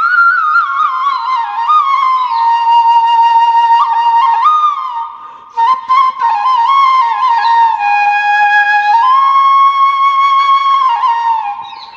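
Background music: a solo flute playing a slow melody of held notes and quick ornamental turns, with a short break about five and a half seconds in.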